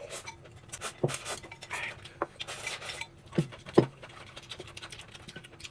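Tableware scraping and clinking, with three louder short knocks, one about a second in and two close together near the middle.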